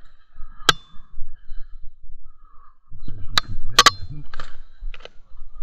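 Rustling and handling noise as someone pushes through brush and branches, with a few sharp cracks and knocks, one alone and then a quick cluster of three or four about three seconds later. Some of the cracks carry a brief high ring.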